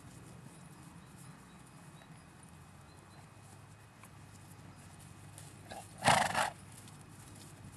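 A horse's hoofbeats, soft and even, as it moves in a smooth gait on grass. A little after six seconds in comes a short, loud noisy burst of about half a second, with a smaller one just before it.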